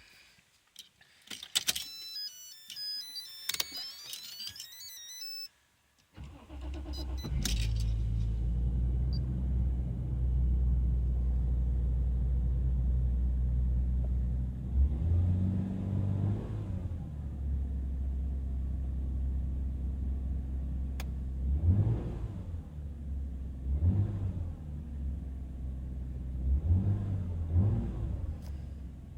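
Car engine started cold: a few seconds of clinking and electronic beeping, then the engine cranks and catches about six seconds in and settles into a steady idle. Several short throttle blips follow in the second half.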